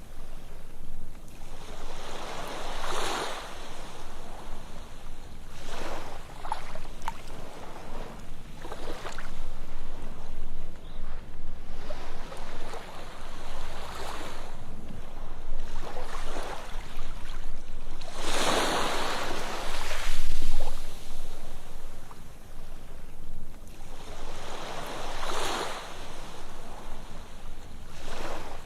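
Ocean waves breaking and washing up a sandy beach, each surge rising and falling every few seconds. The biggest wave comes about two-thirds of the way through.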